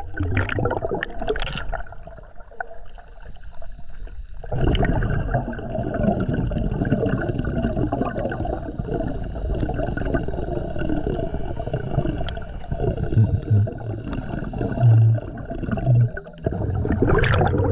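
Water gurgling and splashing: a busy, unbroken wash that grows louder about four seconds in, with a few brief low thumps near the end.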